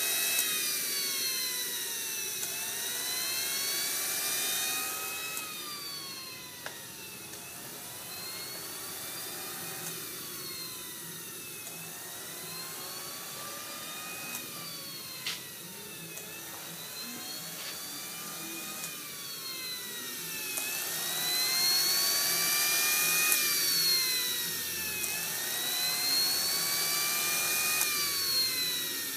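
Kingtech K-180 model jet turbine in its cool-down after shutdown, its rotor spinning with a whine that rises and falls over and over, about every two and a half seconds.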